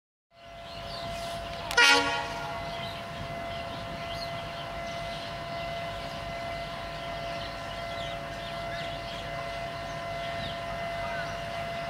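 WDM-3A diesel-electric locomotive with a 16-cylinder ALCO 251 engine, running steadily as it creeps along during shunting. About two seconds in, its horn gives one brief, loud toot.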